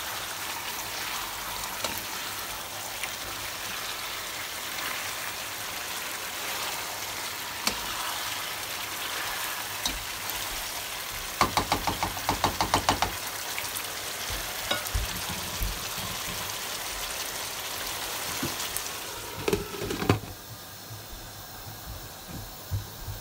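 Chicken curry sizzling in a frying pan as it is stirred with a spatula, with a quick run of spatula knocks against the pan a little past halfway. Near the end a glass lid clunks down onto the pan and the sizzle goes quieter and muffled under it.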